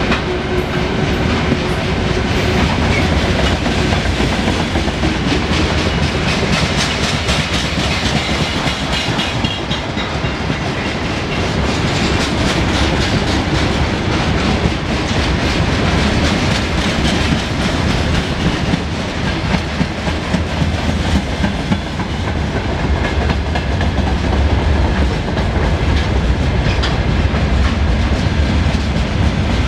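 Freight wagons of a long freight train (hoppers, gondolas and boxcars) rolling past close by, wheels clicking rapidly over the rail joints over a steady rumble.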